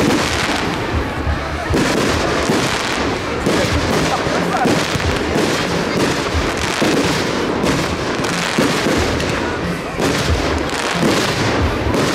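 Aerial fireworks bursting in the sky one after another, a dense, unbroken run of overlapping bangs and pops.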